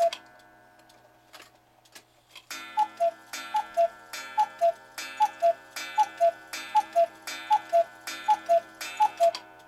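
An 8-day cuckoo clock's two-note cuckoo call, each note with a puff of air from its bellows. It gives one cuckoo at the start, then after a pause with faint ticking it strikes nine o'clock: nine cuckoos in a row, about one every 0.8 seconds.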